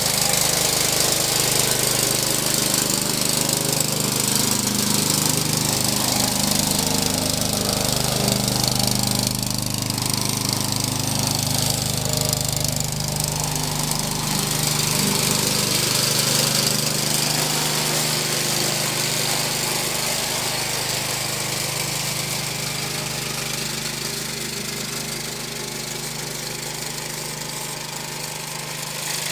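Walk-behind petrol rotary lawn mower running steadily while cutting grass, a little quieter near the end as it moves away.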